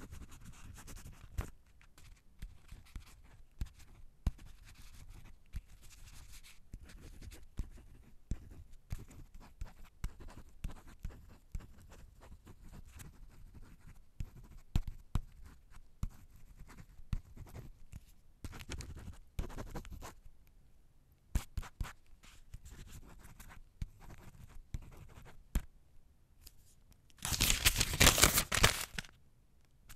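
Pen writing by hand on paper: irregular scratching strokes with short pauses and small taps of the tip. Near the end comes a much louder, rougher scratching for about two seconds.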